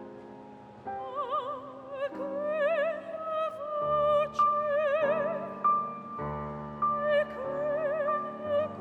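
Classical music in an operatic style: a high melody line with wide, even vibrato over sustained piano chords. The melody comes in about a second in, after a few chords.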